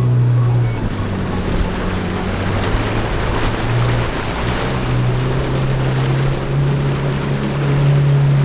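A car driving through deep floodwater on a road: a steady rush and splash of water thrown up around the wheels. Underneath is a low drone that steps up and down in pitch a few times.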